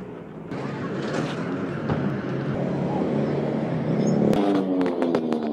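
Street traffic, with a motor vehicle's engine running close by; it grows louder in the second half, with a few sharp clicks near the end.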